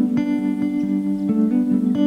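Background music of plucked guitar notes at a steady, regular pace.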